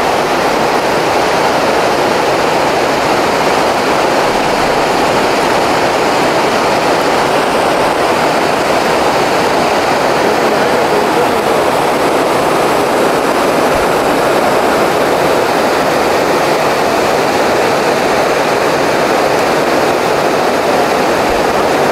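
Steady rushing of a river's current running fast and shallow over a bed of rocks.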